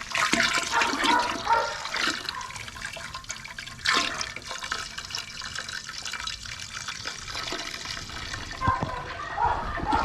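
Liquid pouring and splashing into a pot of bones for bone broth, a steady splashy rush with a few sharper splashes.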